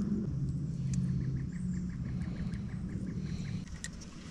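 Low, steady motor hum from a bass boat, with a run of light, rapid ticks through the middle.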